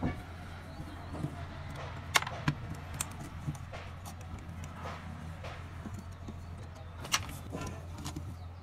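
A few sharp metal clicks and taps, spread out with long gaps, from a steel rod or punch worked against an alternator's end housing.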